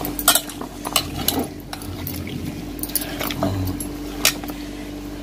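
A hand squishing and mixing raw chicken with wet masala paste in an aluminium pot, with irregular sharp clinks of bangles knocking against the pot and each other.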